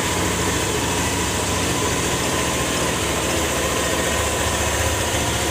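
Hero Pleasure Plus BS6 scooter's single-cylinder engine idling steadily. It runs smoothly with no abnormal noise, the timing-chain noise it had now cured.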